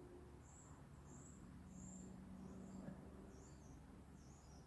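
Near silence: room tone, with a faint series of short, high chirps about once or twice a second.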